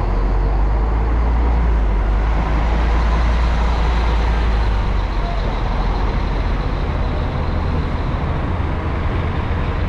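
Coach bus engine running close by, a steady low rumble.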